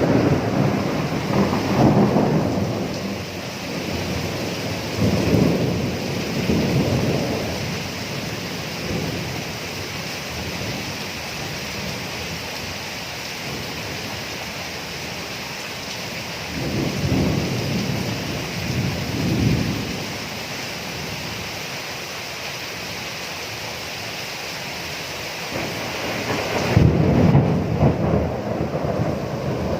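Steady rain with thunder rolling in low rumbles four times: at the start, a few seconds in, about halfway through, and again near the end, each swelling and fading over a couple of seconds.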